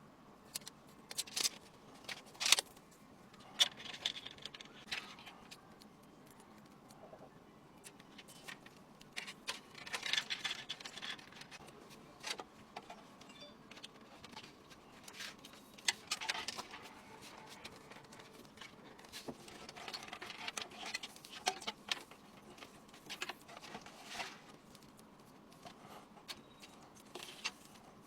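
Small hard parts being handled during a PC build: scattered sharp clicks and clinks, with short bursts of rustling several times.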